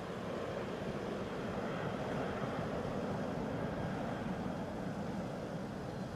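Steady jet noise from a C-17 transport's four turbofan engines, heard at a distance.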